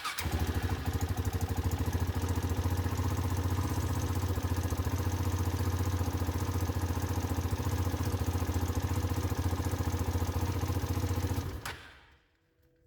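KTM LC4 640 Adventure's single-cylinder four-stroke engine, just started, idling steadily, then switched off about eleven and a half seconds in. It is run briefly after an oil change to bleed air from the oil circuit in the frame.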